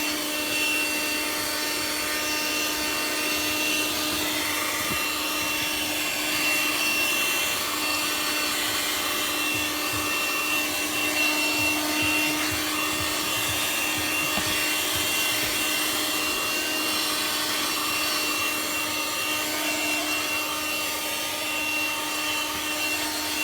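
Handheld car vacuum cleaner running with its wide nozzle fitted, picking up large bits of dirt: a steady motor hum and high whine, with a changing rustle of debris and the nozzle working over the surface.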